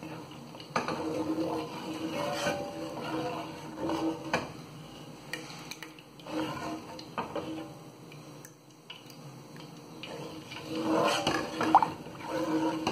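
Wooden spoon stirring hot frying oil with melting rosin in a cooking pan, knocking and scraping against the pan every second or two.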